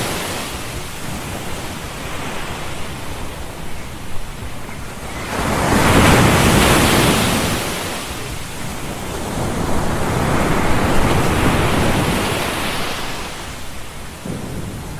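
A white-noise sound bed of rushing, surf-like noise. It swells and fades slowly, twice, like waves breaking on a shore.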